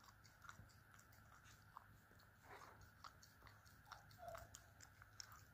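Boston terrier puppy licking and nibbling a chocolate-dipped ice cream cone: faint, irregular wet mouth clicks and small crunches.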